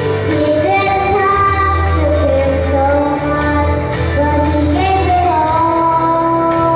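Young girl singing a song into a microphone over accompanying music, holding several long notes.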